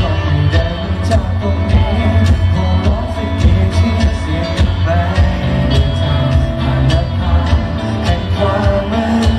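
A man sings a pop song live into a handheld microphone, amplified over backing music with a steady drum beat and bass.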